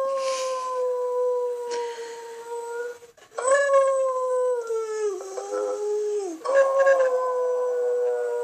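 Dog howling in long drawn-out notes, with short breaks about three and six seconds in. Each howl sinks slowly in pitch, the middle one furthest.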